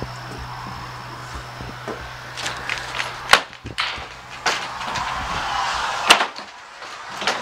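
Old wooden entry door and screen door being handled and opened: a series of sharp wooden knocks and latch clicks, about a second apart in the second half. A steady low hum stops about three seconds in.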